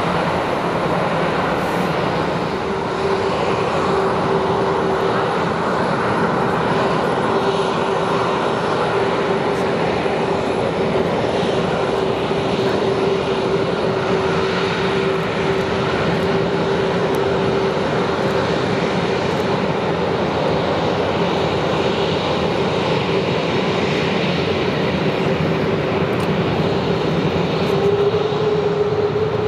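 Boeing 737-300's CFM56 turbofan engines running at taxi power as the jet taxis by: a steady rushing jet noise carrying a steady whine, which rises slightly near the end.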